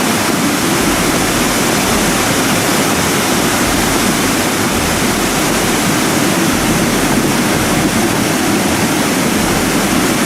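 Debris flow: a steady, loud rush of muddy water and debris.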